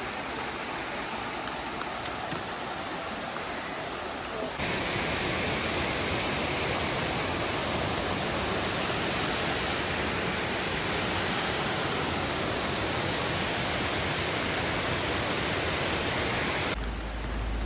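A waterfall's steady rushing roar. It jumps suddenly louder and brighter about four and a half seconds in, then changes again near the end.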